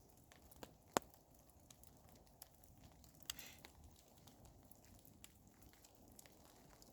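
Campfire crackling faintly with scattered sharp pops, the loudest about a second in.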